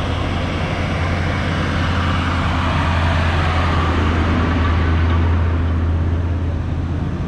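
Road traffic: vehicle engines running with a steady low hum and tyre and road noise, swelling a few seconds in as a flatbed truck passes close by.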